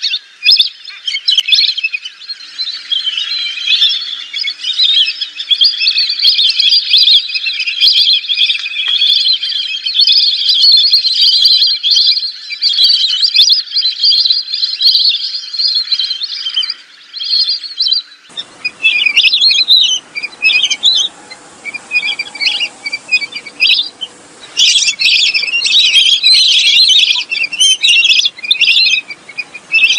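Lesser whistling ducks calling: high, chattering whistles in a dense continuous chorus. About 18 seconds in the recording changes to separate bursts of whistles over a faint hiss.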